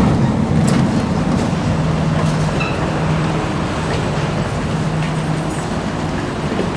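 Steady low hum and noise of a stopped MRT train and its underground platform, with passengers' footsteps as they walk off the train.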